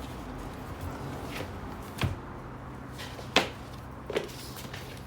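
Sharp metallic knocks of wrenches on a brake caliper bolt as it is worked loose: three clear knocks, the loudest about midway, with a fainter one before them.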